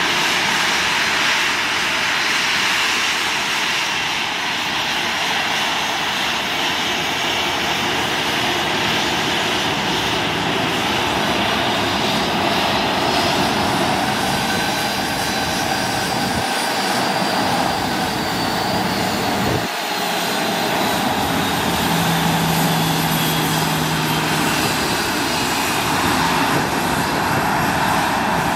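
Boeing 737-700's CFM56-7B turbofan engines running at taxi power: a steady jet rush with a high whine that slowly falls in pitch.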